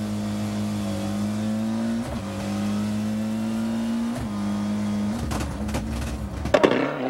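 Ford Escort rally car engine heard from inside the cabin under hard acceleration. Its note climbs and drops sharply at upshifts about two and four seconds in. Near the end the engine note falls and goes uneven, with several sharp knocks and one loud crack.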